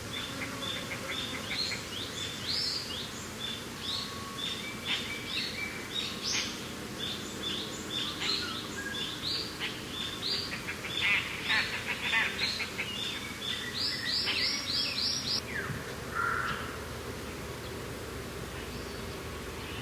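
Several birds chirping and calling rapidly in quick repeated notes over a steady wind hiss; the calls stop about three-quarters of the way through, leaving mostly the wind.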